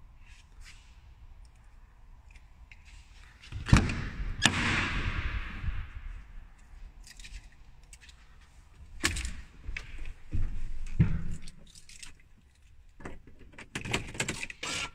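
A truck cab door being opened, with a solid thunk about four seconds in and a rushing noise that fades over the next two seconds, then scattered knocks and a quick run of clicks near the end.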